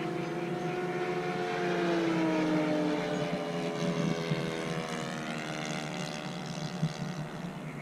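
Engines of radio-control model warbirds in flight. One engine's note drops in pitch as it passes and fades about three seconds in, then a higher engine note rises.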